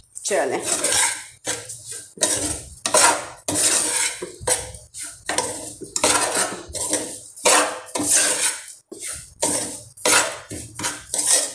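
A metal spoon scraping and stirring ground dal flour as it roasts in oil in a stainless steel pan. The strokes are quick and repeated, about two a second.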